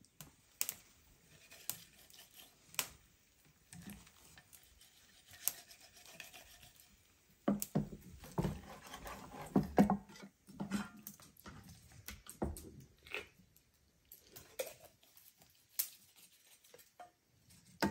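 Knife cutting up a whole raw chicken on a wooden cutting board: scattered sharp taps of the blade on the board, with a denser stretch of cutting and handling the meat about halfway through.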